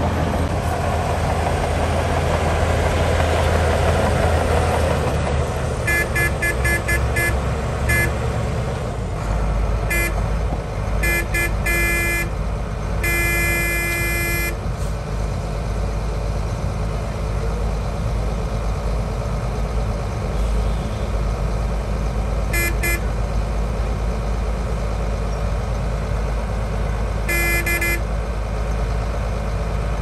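Heavy diesel earthmoving machinery running steadily, with a vehicle horn tooted in quick runs of short beeps starting about six seconds in. A longer blast comes near the middle, and a few short toots come again near the end.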